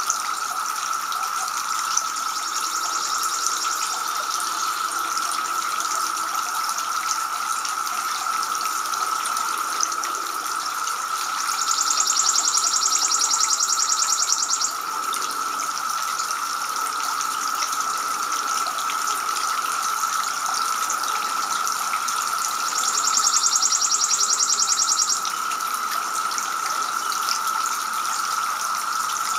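Water from a two-tier garden fountain spilling steadily from the upper bowl into the basin. A high, rapid trill sounds three times over it, about two seconds long each time, the loudest near the middle and near the end.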